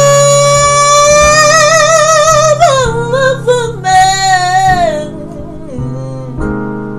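A woman sings a long held note with vibrato over electronic keyboard chords. Near the middle it breaks into wavering runs and a higher note, and the voice stops about five seconds in while the keyboard chords ring on.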